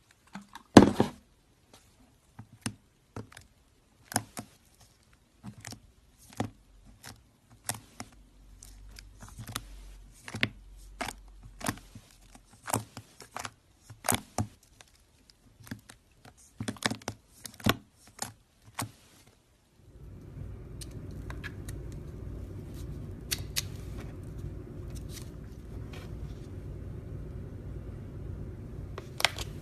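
Irregular sharp clicks and taps, typical of handling containers and utensils while making slime. About twenty seconds in, a steady low hum starts under the clicks.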